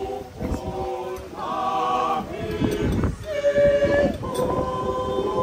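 A group of voices singing together in long held notes, the pitch changing about once a second.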